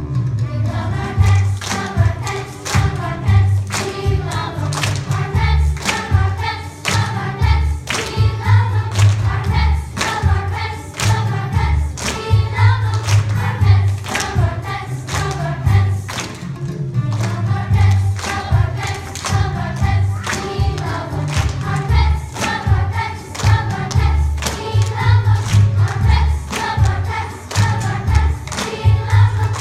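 Background music with a steady beat and a choir singing.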